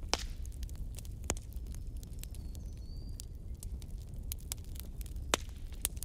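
Wood fire crackling, with scattered sharp pops over a low steady rumble of the flames; a few pops stand out louder, the strongest right at the start and another about a second in.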